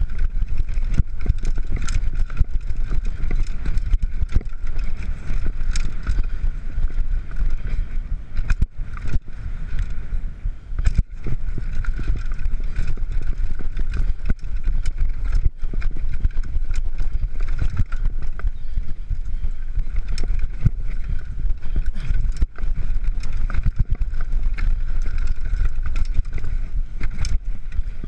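Downhill mountain bike descending a dirt trail at speed: a steady low rumble of tyres and wind on the microphone, broken by frequent sharp knocks and rattles from the bike over bumps and stones.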